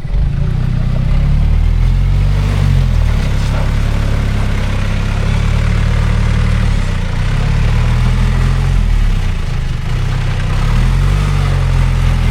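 A large engine running close by, its pitch rising and falling as it revs up and eases off several times.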